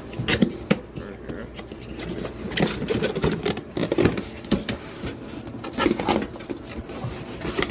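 A box being opened and its packaging handled: irregular rustling and scraping with many small clicks and knocks.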